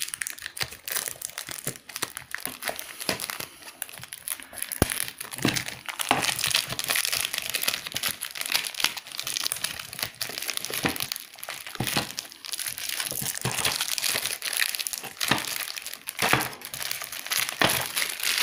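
Clear plastic shrink wrap being torn open and peeled off a DVD case: continuous crinkling with many small, sharp crackles.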